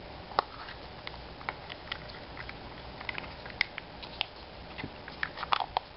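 Small plastic surprise egg handled and opened by hand: irregular light clicks and taps of plastic, with a quick cluster of clicks near the end.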